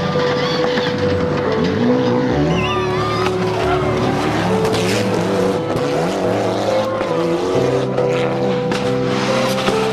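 Mitsubishi Lancer Evolution rally car's turbocharged four-cylinder revving up and down hard, with tyres squealing as it slides through tarmac corners. Held music tones run underneath.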